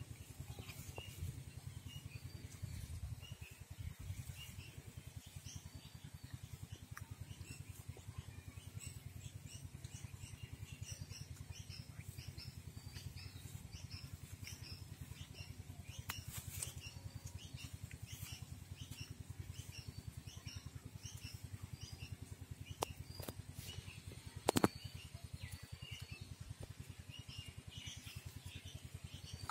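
Small birds chirping again and again in short high calls over a steady low rumble, with one sharp click about three-quarters of the way through.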